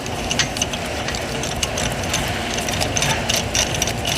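A hand-held power tool, such as an air or electric ratchet, running steadily with a fast mechanical rattle of rapid clicks, while working fasteners on a CVT transmission.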